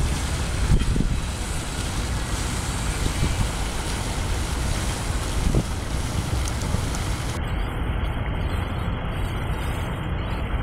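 Fountain water spouting from a bowl and spilling from its side spouts into the pool below: a steady splashing rush, with a low rumble underneath.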